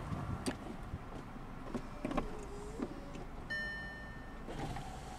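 Power soft top of a 2018 Volkswagen Beetle convertible closing on its overhead switch: mechanical clicks and a short motor whine, then a steady beep lasting about a second. Near the end a steady electric motor whine starts.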